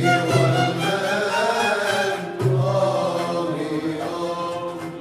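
Music with a chant-like, wavering melody line over a sustained low note.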